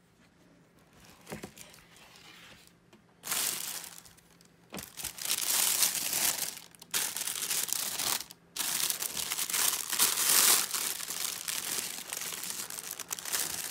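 Tissue paper crinkling and rustling as it is pulled back from a sneaker in a cardboard shoebox. After about three seconds of faint handling, the crinkling turns loud and goes on in bursts with short pauses.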